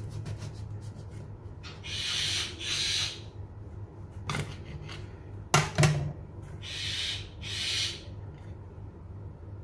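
Knife sawing through a baked marble cake in back-and-forth strokes, a rasping scrape heard in two pairs of strokes, with a few sharp knocks in between.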